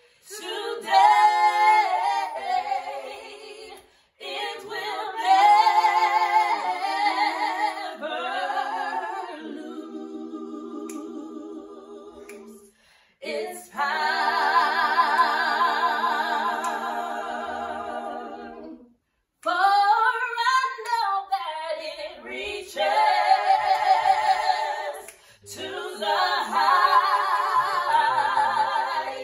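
Three women singing a gospel song a cappella in harmony, in phrases separated by short breaths, with vibrato and one long held chord about halfway through.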